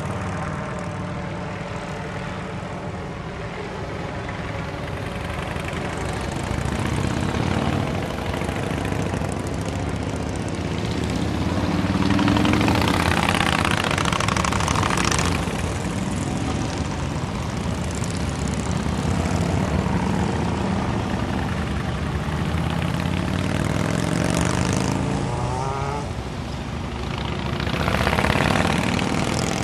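A long column of motorcycles, many of them Harley-Davidson cruisers and touring bikes, riding past one after another at low speed with a steady engine rumble. The sound swells as each close group passes, loudest a little before halfway and again near the end.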